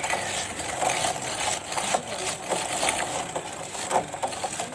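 Motorcycle drive chain rattling and clicking steadily as it runs over its sprockets.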